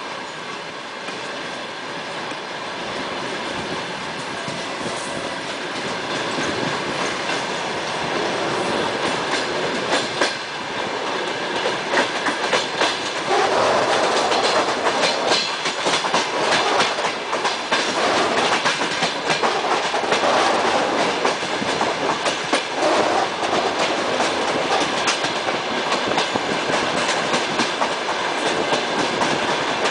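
Wheels of a passenger train carriage clattering over the rail joints as the train pulls out of the station, heard from inside the carriage. The rumble and clacking grow louder over the first dozen seconds as the train gathers speed, then run on steadily.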